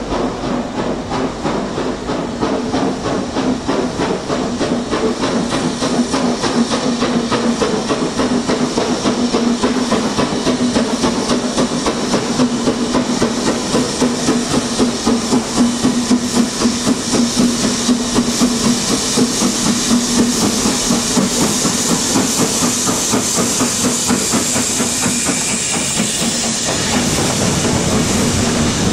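Steam locomotive hauling a train of Mk1 coaches, steam hissing steadily as it approaches and passes, growing louder. The coaches then roll by with the clatter of wheels on the track near the end.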